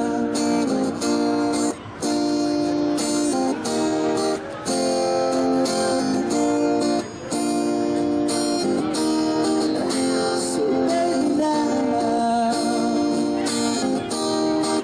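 Acoustic guitar strummed in sustained chords, changing every second or so, as an instrumental passage of a song.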